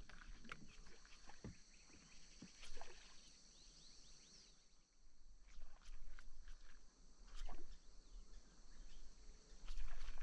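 Steady high-pitched insect drone with a few faint bird chirps, and scattered short knocks every few seconds.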